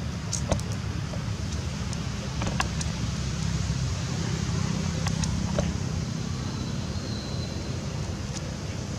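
Steady low outdoor rumble, with a few faint clicks and a brief faint high tone about seven seconds in.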